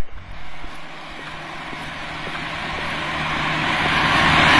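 A motor vehicle approaching, its engine and road noise growing steadily louder.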